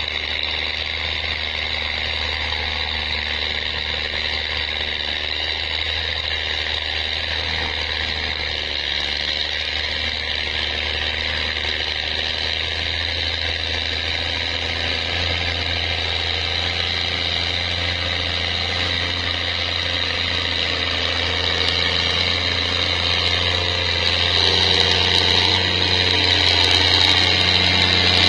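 A New Holland TS6.125 tractor's diesel engine runs steadily under load while ploughing, growing louder toward the end as the tractor comes closer.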